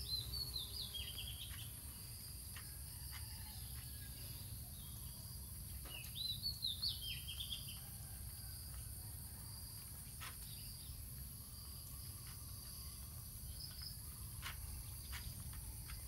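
Steady high-pitched chirring of insects, with a bird singing two short phrases of descending chirps, one at the start and one about six seconds in. A few faint clicks now and then as a puppy eats from a plastic tray.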